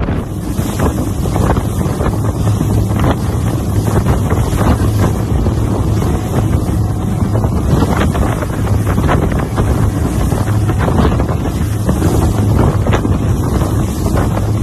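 Heavy wind buffeting the microphone aboard a fast-running outboard-powered center-console boat in rough water, over a steady low engine drone and the rush of spray and chop against the hull.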